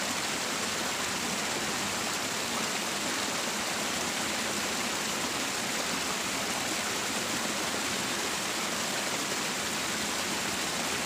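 Steady rush of water spilling down a small cascade in a stone-lined irrigation ditch, a bit noisy.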